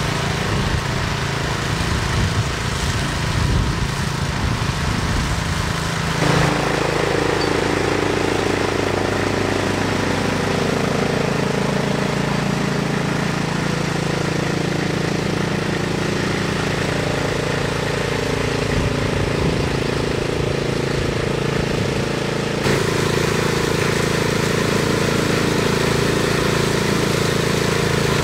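PANTER FD-344-HG walk-behind tall-grass cutter with its 344 cc Briggs & Stratton petrol engine, running steadily under load as its mulching blade cuts tall grass. The engine's tone changes abruptly about six seconds in and again a little after twenty seconds.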